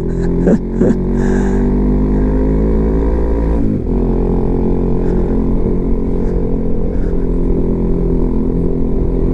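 Honda CB150X's single-cylinder engine running steadily under way, with a brief dip and change in engine note about four seconds in, over a low rumble.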